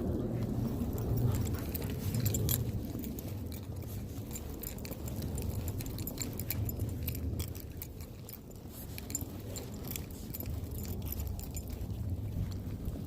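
Light jingling and clicking, many small sharp ticks close to the microphone, over a steady low rumble of wind on the microphone.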